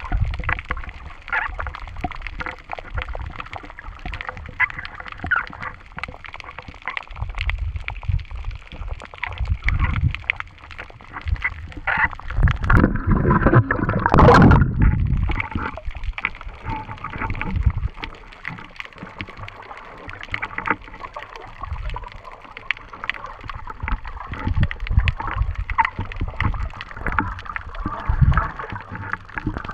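Water gurgling and sloshing around an action camera as it is held underwater, with small clicks and low rumbles. About 13 seconds in, a louder rush of splashing comes as the camera breaks the surface.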